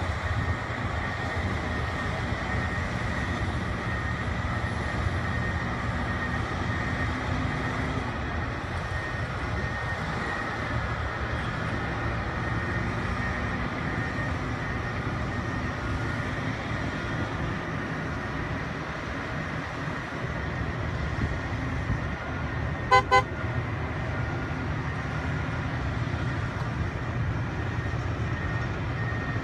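Crawler dozers' diesel engines running steadily under load, with a thin steady high whine over the drone. About three-quarters of the way through come two short beeps in quick succession.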